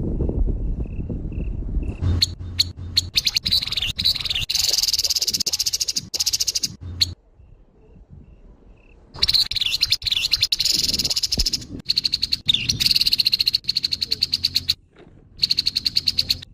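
Grey-headed babbler giving harsh, rattling chatter in four bouts, each a fast train of dry clicks, with short silent gaps between them. A low rumble sits under the first couple of seconds.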